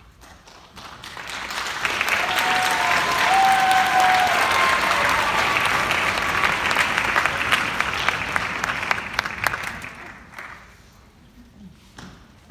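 Concert audience applauding, swelling up over the first couple of seconds, holding steady, then dying away about ten seconds in.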